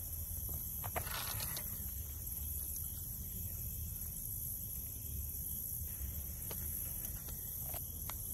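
Outdoor ambience: a steady high-pitched insect drone over a low rumble, with a few faint clicks about a second in and again near the end.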